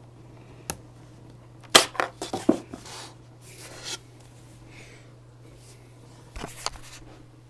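Handling noise from a laptop being picked up and moved on a desk: a few sharp knocks and clicks, loudest about two seconds in, and a brief rubbing sound, over a low steady hum.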